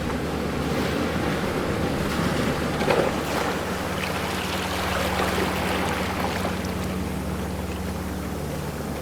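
Ocean waves washing in steadily, with one swell louder about three seconds in. A faint steady low hum runs under the surf for part of the time.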